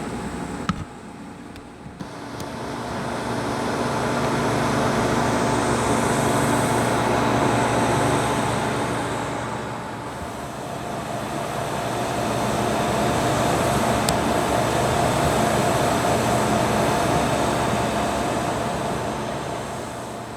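Motor vehicle noise that swells and fades twice, like vehicles passing, over a steady engine hum.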